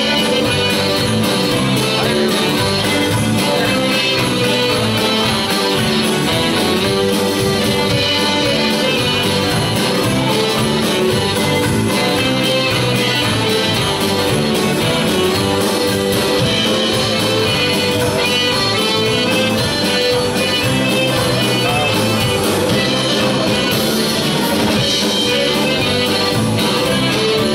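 Live country band playing an upbeat number, with a saxophone taking the lead over drums and the rest of the band.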